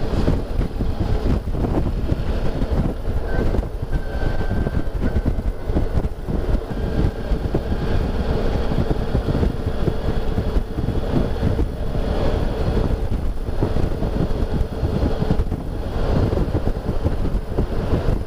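Wind buffeting the microphone of a motorcycle cruising at highway speed, with the bike's engine running steadily underneath.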